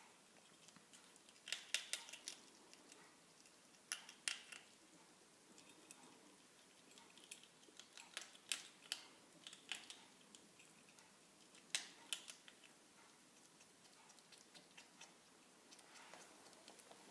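A ferret eating, its teeth making sharp clicks and crunches in short clusters a few seconds apart. The owner wonders whether the noise is tooth grinding, a possible sign of abdominal pain.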